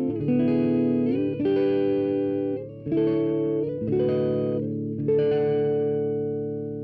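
Electric guitar chords from a Gibson SG with P90 pickups, played through a JTM-45-style tube amp tone that is not quite clean and not quite dirty. About five chords are struck in turn, and the last one is left ringing and fading out.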